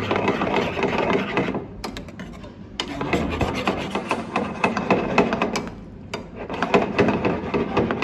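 A metal spoon scraping and stirring penne in thick white sauce around a stainless steel frying pan, in strokes, stopping briefly twice.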